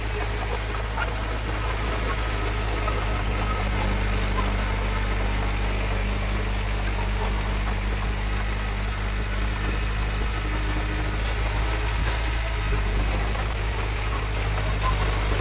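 Diesel engine of heavy earthmoving machinery running steadily, a constant low hum with no revving.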